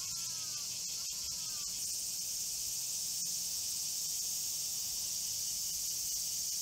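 Steady high-pitched insect chorus, with a bird giving a few short falling calls in the first two seconds.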